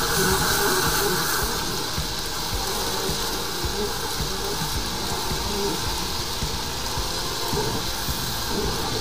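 High-pressure sewer jetter running: a steady hiss of the water jet working in the drain line as the jetter hose is fed down the manhole, with low rumbling knocks underneath.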